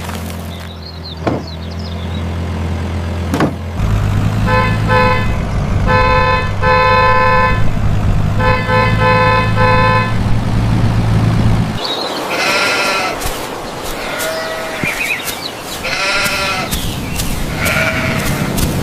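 Cartoon tractor engine running with a steady low hum, with a horn honking in short repeated blasts over it; the engine cuts off about twelve seconds in. Several sheep bleats follow.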